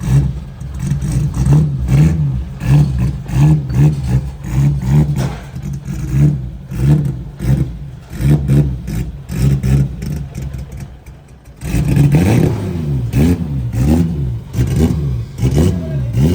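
BMW M20 straight-six engine being revved in quick blips, about two a second. After a short lull near eleven seconds the revs come back louder, swinging up and down in wider sweeps.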